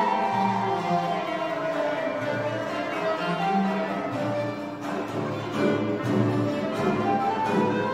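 Live Mevlevi sema ceremony music from a small instrumental ensemble: sustained, gliding melody lines over low repeated notes.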